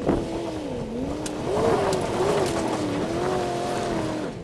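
Land Rover Discovery I engine revving up and down as it crawls over rocks, its pitch raised by sped-up playback.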